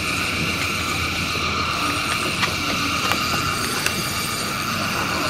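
A steady mechanical whirr with a few light clicks scattered through it.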